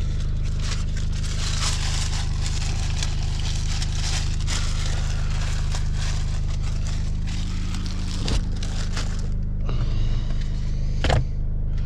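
Opel Movano van's diesel engine idling steadily in the cab, under paper rustling and crinkling as receipts are handled for most of the time. A thump comes about eight seconds in and a sharp knock near the end.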